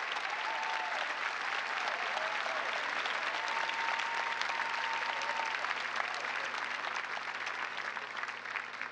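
Large theatre audience applauding at the end of a song, with a steady high tone held for about two seconds near the middle; the applause eases off slightly near the end.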